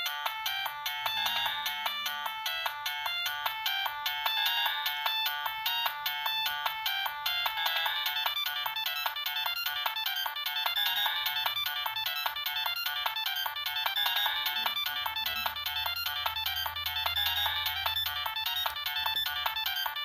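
Preloaded ringtone playing on a Siemens C72 mobile phone: a busy electronic melody of many rapid notes that runs on without a break. It sounds thin, with almost no bass.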